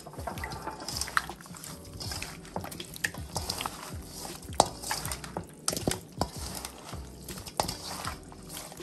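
Wet squelching and smacking of seasoned raw turkey necks being kneaded and rubbed by hand in a stainless steel bowl, in quick irregular clicks and smacks, one sharper smack about halfway through.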